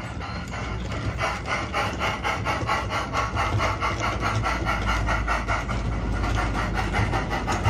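Sound-unit steam chuffs from a battery-powered, radio-controlled 32 mm gauge model of the Ffestiniog 0-4-0 'Prince': a quick, even beat of simulated exhaust beats as it hauls its coaches. A low rumble builds underneath from about halfway.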